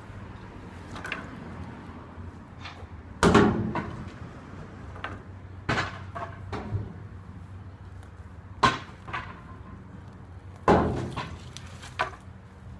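Junk and debris thrown against and into a steel roll-off dumpster: five loud bangs a couple of seconds apart, each with a short metallic ring.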